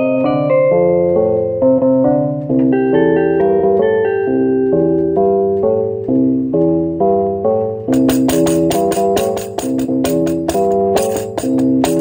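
Keyboard music in a blues and boogie-woogie style, with moving melody notes over chords. About eight seconds in, a steady percussion rhythm of sharp, bright hits joins the keyboard.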